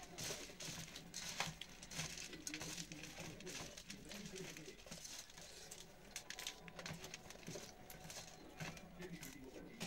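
Fingers scooping and picking up puffed rice from stainless steel plates, along with chewing: faint, irregular rustling, scraping and small clicks.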